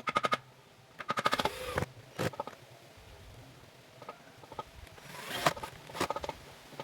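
Woodworking work noise: several short bursts of rapid clicking and rasping, each lasting under a second.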